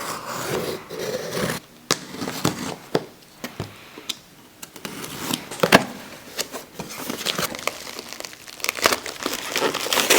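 Packaging crinkling, rustling and tearing as a shipping parcel is opened and its contents handled, in irregular bursts with sharper crackles in the second half.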